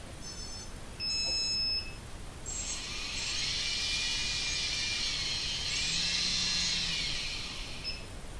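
Two short electronic arming beeps, then the quadcopter's brushless motors, with no propellers fitted, spin up and run with a high whine for about five seconds before winding down near the end.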